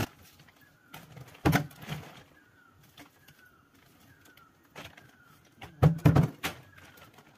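Sharp knocks and rustles of hands working soil into a plastic flower pot, loudest in a cluster about six seconds in. Behind them a small bird calls over and over with short falling chirps.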